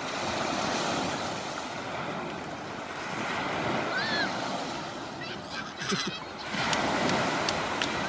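Steady wash of surf, swelling and ebbing every few seconds. A brief high chirp sounds about four seconds in, and a few sharp clicks come near the end.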